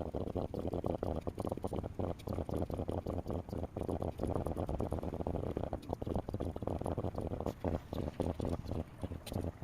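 Steady, muffled patter of rain, a dense irregular crackle with a low steady rumble underneath.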